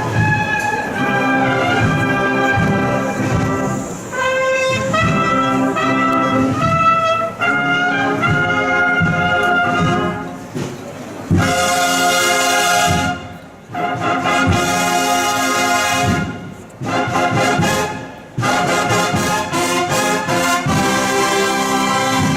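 Brass band playing a Holy Week processional march, with sustained trumpet and trombone chords and percussion strikes.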